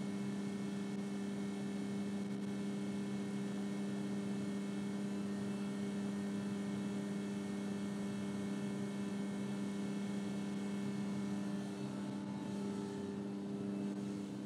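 Vermeer XR2 vacuum excavator running with a steady low drone that holds one unchanging pitch.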